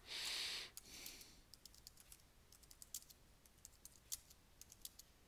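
Typing on a computer keyboard: faint, irregular key clicks, with a short hiss in the first second.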